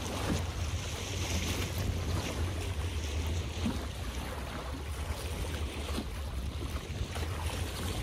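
Water splashing and lapping as small waves, with wind buffeting the microphone as a steady low rumble.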